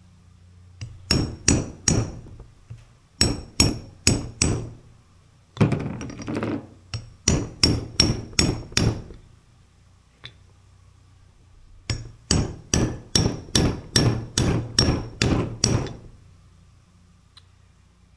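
Hammer tapping a steel socket used as a driver in the housing of a Vickers VTM42 hydraulic power-steering pump, seating the new shaft seal. Sharp ringing taps come in bursts of three or four, with a pause of a couple of seconds past the middle and a final run of about ten quick taps.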